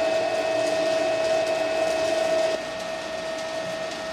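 A small motor or machine running with a steady whir and one held tone, cutting out about two and a half seconds in and leaving a quieter hiss.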